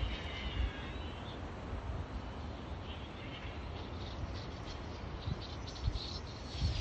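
Wind buffeting the microphone as a gusty low rumble, with faint high-pitched chirping calls in the background.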